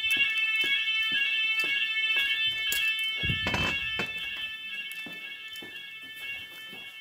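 School fire alarm sirens sounding during a test: a steady multi-tone alarm pulsing about twice a second. A dull thump comes about halfway through, and the alarm fades over the last few seconds.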